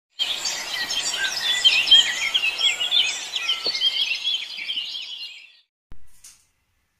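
Many small birds chirping and twittering at once in a dense, overlapping chorus that fades out about five and a half seconds in. A short thump and a brief hiss follow near the end.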